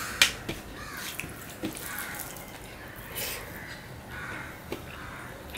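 Fingers mixing and squishing rice and curry on a steel plate, with several short sharp clicks, the loudest just after the start.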